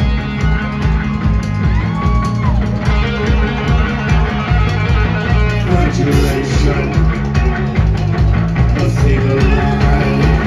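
Live rock band playing at full volume: electric guitars over a driving drum beat.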